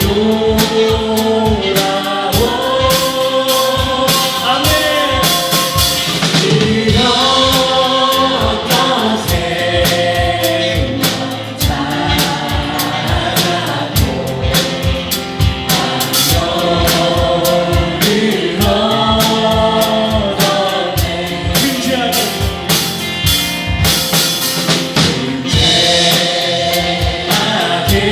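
Live Korean contemporary worship music: a praise band with drum kit accompanying a group of singers in a sustained sung melody, with a steady drum beat.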